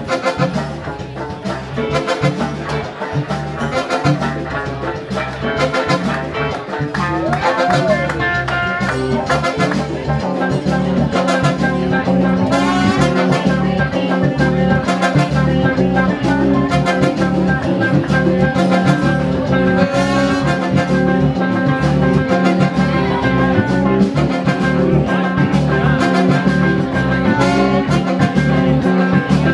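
Live band music: trombone and saxophone playing over congas and electric guitar in a jazzy groove, getting louder about a third of the way in.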